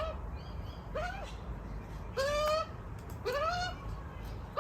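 Young Australian magpie giving its begging call: about four squawks roughly a second apart, each sliding up and then down in pitch, the last two longer and louder.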